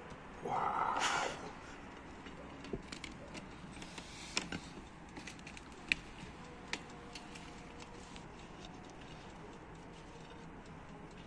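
A brief loud burst of noise about half a second in, then scattered light clicks and taps as baked croissants are handled and set on a plate.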